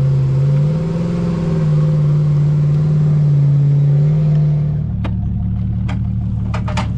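Car engine running hard under load while pulling a heavy weight uphill: a steady drone that rises slightly in pitch about a second in. Just before five seconds in the drone drops away and a few sharp clicks and knocks follow.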